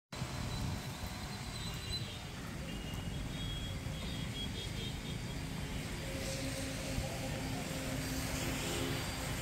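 Steady low rumble of a vehicle under way: engine and road noise, with faint thin tones above it.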